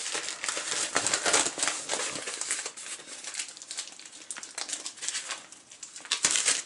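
Plastic mailing envelope crinkling and rustling as it is handled and turned over, a rapid flurry of crackles that eases in the middle and grows louder again near the end.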